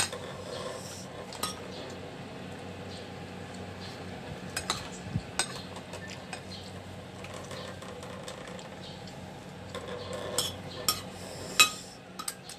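Metal spoon and fork clinking and scraping against a plate while eating, with a handful of sharp clinks scattered through. A quick cluster comes near the end, holding the loudest clink.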